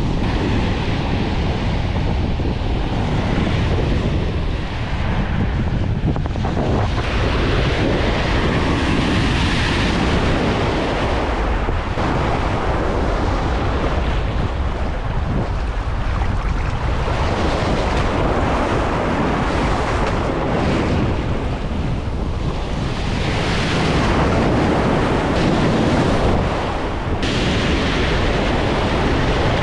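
Rough lake waves washing and breaking on the shore, swelling and easing every few seconds, with strong wind buffeting the microphone.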